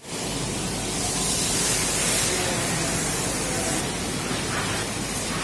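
Steady rushing noise with a low hum underneath, even and unbroken.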